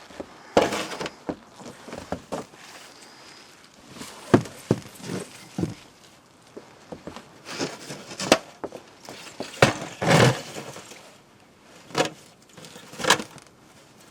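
Irregular knocks, taps and rustles of things being handled and set in place by hand, at uneven intervals with short gaps between.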